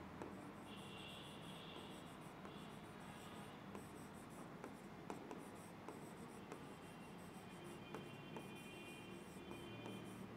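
Writing on the glass of an interactive touchscreen board: faint, irregular taps and light scratching as each word is written.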